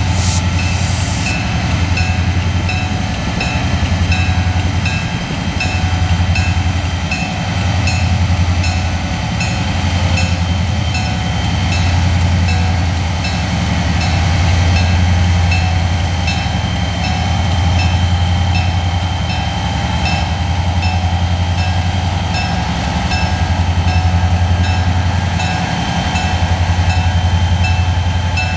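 Wheeling & Lake Erie diesel locomotive's engine running under load as it pulls slowly away, its drone swelling and easing, while the locomotive bell rings steadily, about one stroke a second, as the train gets under way without using the horn.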